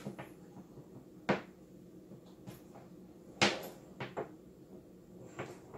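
Handling noise from an inspection camera's probe and cable on a wooden tabletop: two sharp knocks, about a second in and again about three and a half seconds in, then a few lighter clicks.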